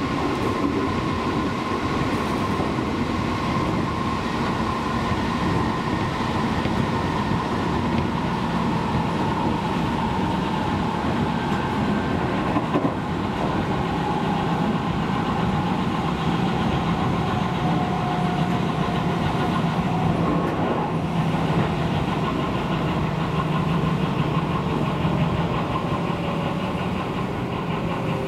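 Seibu Railway electric commuter train running along the line: a steady rumble of wheels on the rails, with faint tones sliding in pitch and a single sharp click about halfway through.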